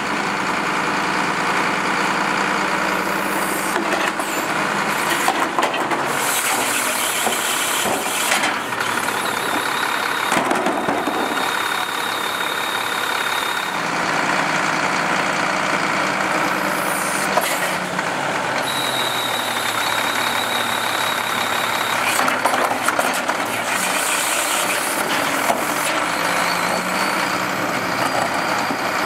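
Manual side-load garbage truck's engine idling steadily, with loose recyclables clattering as a bin is tipped into the side hopper. A high steady whine sounds twice, each for about three seconds.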